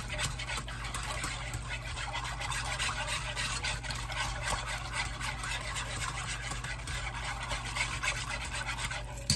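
Wire whisk beating a thickening white sauce in a nonstick pot, a fast steady scraping and sloshing with a low hum underneath. A sharp knock comes near the end.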